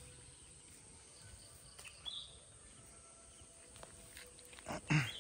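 Quiet riverside ambience with a couple of faint, short bird chirps, and one brief louder low sound near the end.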